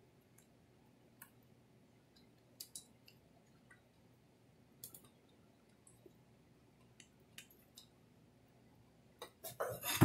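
Faint, scattered small clicks of plastic wire connectors and wires being handled and plugged into an Espar diesel heater, with louder handling clatter starting near the end.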